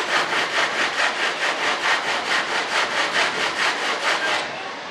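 Coarse 50-grit sandpaper on an aluminum sanding block rubbed briskly back and forth over a primed fiberglass part, about four or five strokes a second, stopping near the end.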